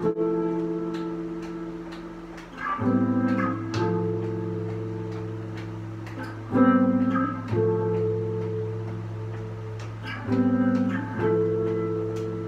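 Guitar playing slow, ringing chords. A new chord is struck in quick pairs about every three seconds, and each one is left to ring out and fade.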